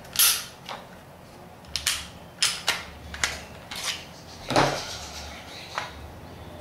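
Glock 27 pistol being taken apart by hand: about ten sharp clicks and clacks as the slide is worked and slid off the frame, and the parts are handled and set down.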